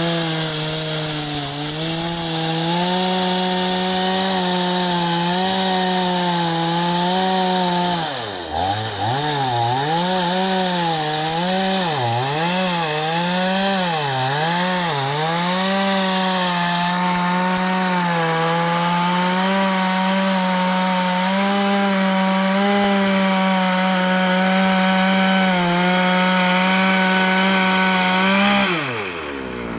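Kawashima two-stroke chainsaw running at high revs while cutting into a tree stump. About eight seconds in its pitch dips sharply and swings up and down for several seconds as the chain loads in the wood, then holds steady again. The revs fall away near the end.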